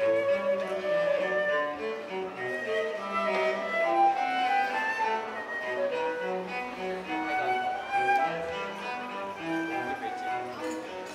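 Live classical chamber music: a flute playing a melodic line together with bowed strings, with several instruments sounding at once in held and moving notes.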